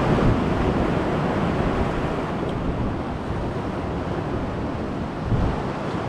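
Sea surf washing in a steady rush of waves, a little louder in the first second, with some wind on the microphone.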